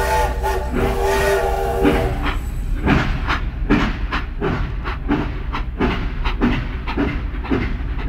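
Toy steam train sound effect: a steam whistle chord blown twice, the second blast ending about two seconds in, then steady chuffing at about three beats a second over a low hum.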